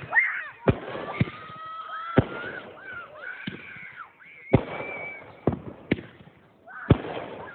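Aerial fireworks going off: about eight sharp bangs at irregular intervals, two of them close together near the end.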